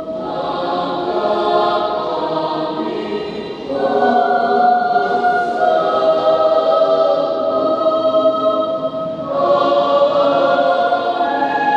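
A high school choir singing a sacred song in long held chords, moving to a new chord about four seconds in and again a little after nine seconds.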